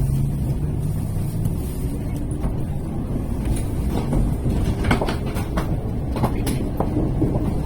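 Tokaido Shinkansen train running slowly, a steady low rumble with a hum that fades out in the first couple of seconds. Midway, a series of sharp clicks and knocks comes from the wheels going over the track.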